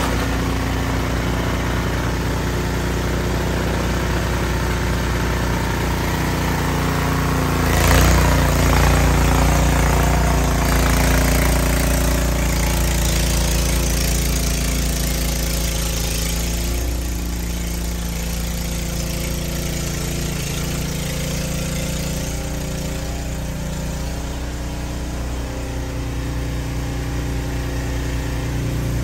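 Ariens RapidTrack Platinum 28-inch SHO two-stage snowblower running steadily in deep snow. About eight seconds in, a sudden louder burst of noise comes in and stays up for several seconds before easing back.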